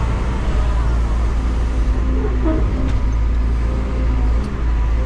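Excavator's diesel engine running steadily under working load, heard from inside the cab, with a few faint knocks and short squeaks from the machine as it digs.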